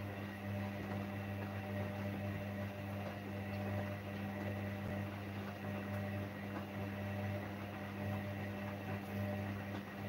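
Gorenje front-loading washing machine running with a steady hum, its overloaded drum turning a wet load of laundry.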